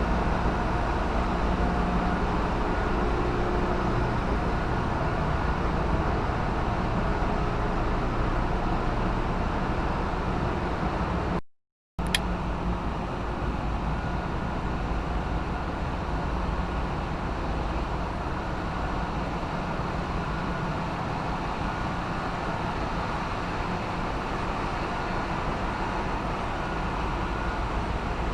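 Steady engine-room machinery noise aboard a bulk carrier: a continuous low hum under a dense mechanical din. It cuts out completely for about half a second a little before halfway, then resumes slightly quieter.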